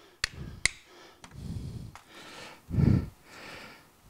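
Two sharp metal clicks in the first second, then scraping and dull knocks as the steel shaft of a Dixie Chopper mower spindle is worked loose by hand in its cast housing after being pressed.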